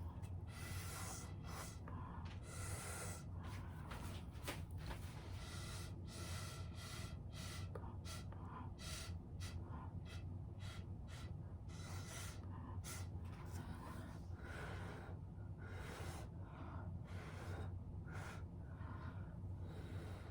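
Short puffs of breath blown through a drinking straw, many in irregular succession, pushing wet acrylic paint across a canvas. A low steady hum sits underneath.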